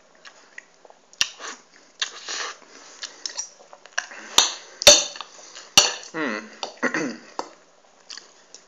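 Knife and fork clinking and scraping on a ceramic plate as pancakes are cut, with several sharp clinks. A couple of short, muffled mouth sounds from eating come a little past the middle.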